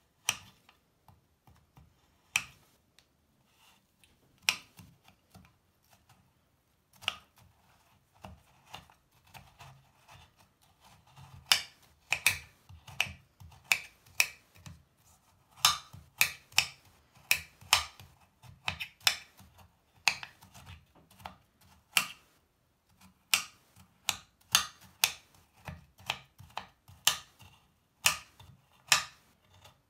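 Kitchen knife chopping a crumbly bubble bar on a marble-and-wood cutting board: sharp separate chops of the blade through the bar onto the board. They come a couple of seconds apart at first and then faster, about one or two a second, with light crumbling between.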